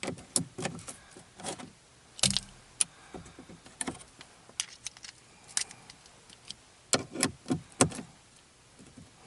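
Scattered light metallic clicks and clinks of an Allen key working the small bolts of a metal phone mount clamped to a plastic dash vent, as the bolts are checked for tightness.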